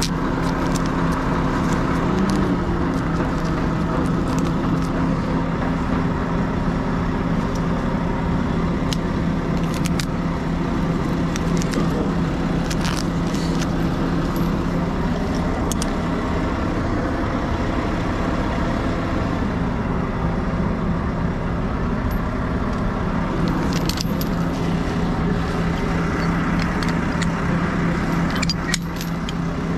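A heavy tow truck's engine runs steadily, with occasional shifts in pitch. Over it, steel rigging chain and a grab hook clink and rattle now and then as they are handled.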